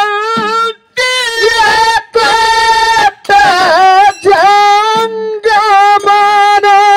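A man singing a dollina pada, a Kannada folk song, solo and unaccompanied: a high voice holding long notes with wavering ornaments, in phrases of about a second broken by short breaths. The last note is held for about two seconds.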